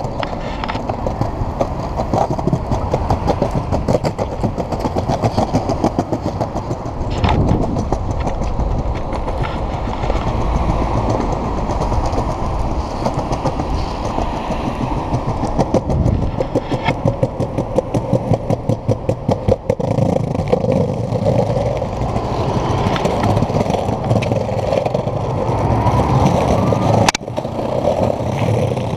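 Cruiser skateboard wheels rolling over paving slabs: a steady rumble with a rapid clatter as the wheels cross the slab joints, and a sharp knock near the end.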